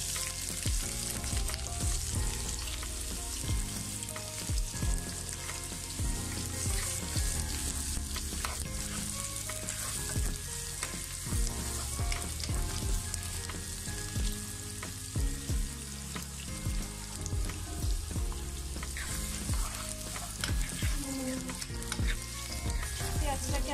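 Sliced onions sizzling in hot mustard oil with whole bay leaves, cinnamon and cardamom in a pan, stirred with a spatula that makes frequent short scrapes and knocks against the pan.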